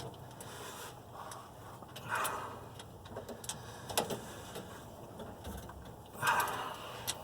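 Hand tools on the differential cover bolts: scattered light metal clicks, a sharper click about four seconds in, and two short scraping sounds, about two seconds in and near the end, as the bolts are snugged down.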